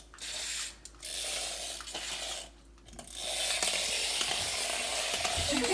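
Small electric motor and plastic gears of a remote-control toy car whirring in three runs as it is driven: a brief one at the start, one of about a second and a half, and a long one from about three seconds in.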